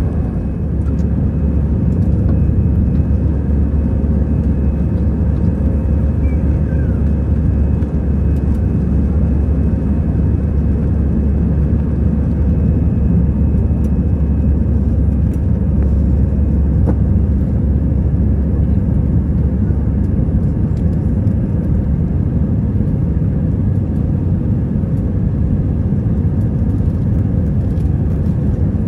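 Airbus A320-200 cabin noise in flight: the steady, deep rumble of the engines and airflow heard from inside the cabin, with a faint steady hum over it.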